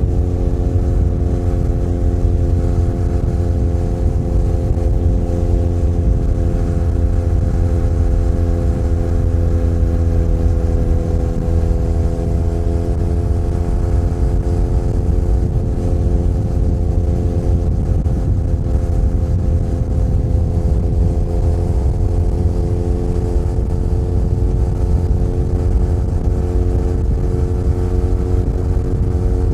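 Benelli Leoncino 500 Trail's parallel-twin engine running under way at a steady cruising pace. Its pitch eases slightly and picks back up now and then, over a heavy low rumble.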